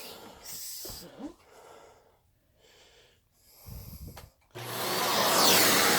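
A few soft handling clicks and rustles, then about four and a half seconds in a vacuum cleaner is switched on and runs with a steady rush of air over a low motor hum.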